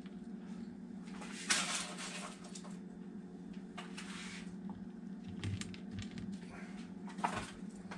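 A serving spoon and fingers scraping and tapping roasted root vegetables onto a dinner plate: a few soft scrapes, over a steady low hum.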